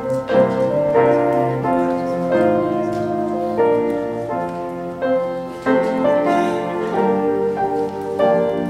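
Instrumental piano music: sustained chords with new notes struck every second or so.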